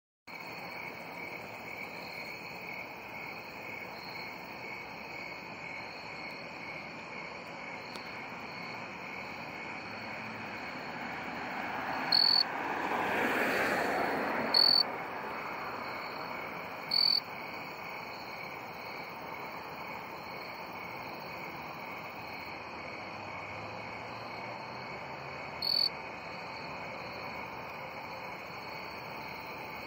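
Male jumping bush cricket singing close up: four short, loud, high chirps several seconds apart, the first about twelve seconds in. Under them runs a steady pulsing trill of other insects, and a broad rushing noise swells and fades around the middle.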